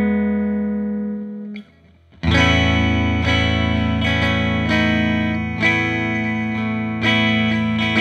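Tele-style electric guitar with Alnico 5 single-coil pickups, neck and bridge pickups together, played through an amp with the volume knob rolled down. A strummed chord rings and fades to a short gap about two seconds in. Then a new chord is struck and rings, with further strums near the middle and towards the end.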